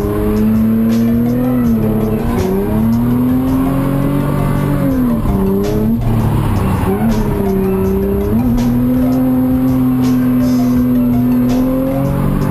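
Car engine held at high revs, dropping and climbing back several times, as in a hard track or drift run.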